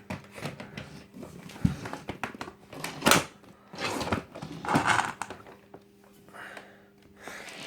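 Plastic clicks, knocks and rustling from handling a cordless Hoover vacuum cleaner, with a sharp click about three seconds in.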